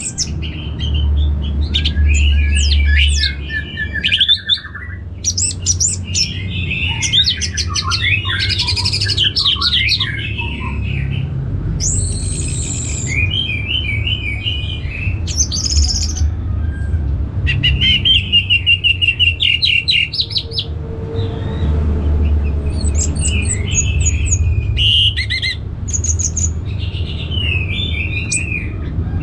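Orange-headed thrush singing loudly: quick, varied phrases of whistles, trills and chirps with short pauses between them, over a steady low rumble.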